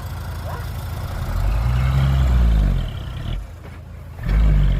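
Heavy diesel engine running and revving under load, swelling loud for about a second and a half, easing off, then surging again briefly near the end.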